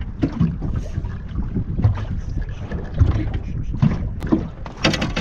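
Wind rumbling on the microphone in a small boat, with irregular low knocks from handling and the hull. A short cluster of sharp clicks comes near the end.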